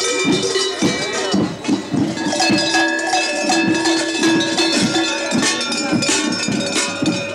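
Many large cowbells worn by fur-costumed Krampus figures clanging unevenly as they walk. Bells of several pitches ring over one another.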